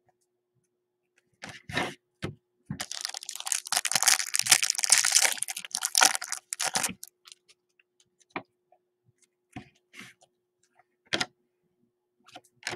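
Foil trading-card pack wrapper crinkling loudly as it is opened, from about three seconds in to about seven, with light clicks and taps of cards being handled before and after.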